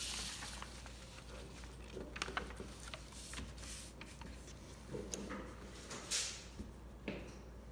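Sheets of paper rustling and sliding as drawing printouts are handled, with a swell of rustle at the start and again about six seconds in, and a few faint clicks over a low steady room hum.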